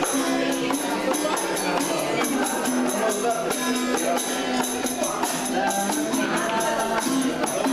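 Instrumental music with a steady beat: sustained low melodic notes under crisp, evenly repeating high percussion, with no singing yet.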